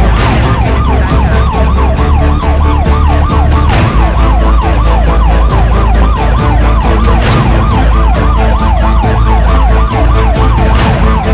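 Electronic emergency vehicle siren sounding a fast yelp, rising and falling about four times a second without a break, over a deep steady bass.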